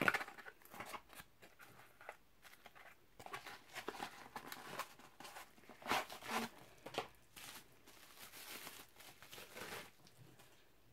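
Small cardboard box being opened and its packing handled: irregular scraping, crinkling and tearing, beginning with a sharp tap.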